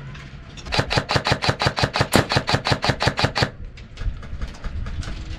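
Airsoft gun firing a rapid string of shots, about ten a second, lasting nearly three seconds before stopping.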